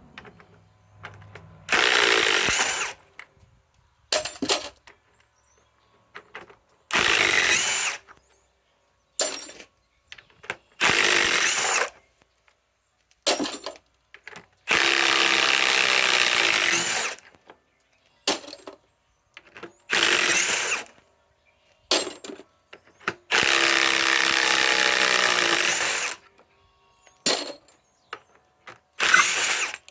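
Ryobi PSBIW25 compact impact wrench hammering in reverse, backing fasteners out of wood. It runs in about seven bursts of one to two and a half seconds each, with short blips of the trigger between them.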